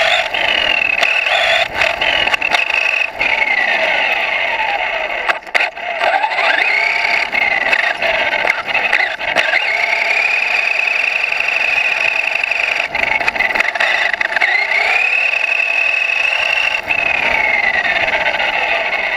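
Onboard sound of an RC car's motor and drivetrain whining over steady road noise from the tyres. The whine's pitch drops and climbs several times as the car slows and speeds up, and holds high and steady for several seconds in the middle.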